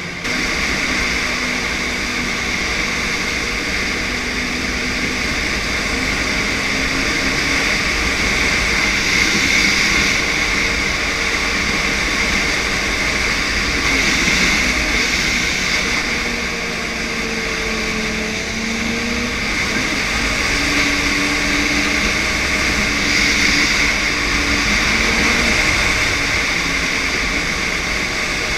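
Snowmobile engine running steadily under way, with the noise of the sled moving over the snow, its pitch rising and falling a little as it goes.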